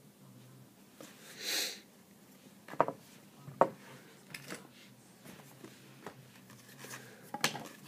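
Quiet handling of a small stack of football trading cards, cards sliding and being moved to the back of the stack, with three sharp card snaps. A short sniff comes about one and a half seconds in.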